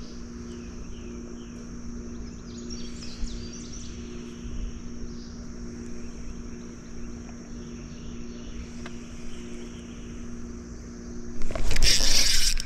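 A steady low hum from a small motor under a constant high-pitched insect drone, with a few short bird chirps in the first few seconds. About a second before the end a loud rushing, splashy noise sets in.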